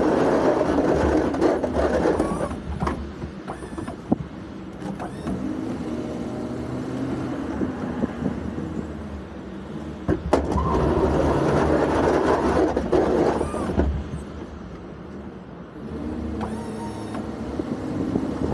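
Ford F-350 pickup plowing snow: the engine runs steadily while the plow scrapes snow across the pavement. The scraping grows louder for a couple of seconds at the start and again about ten seconds in, with a few short knocks.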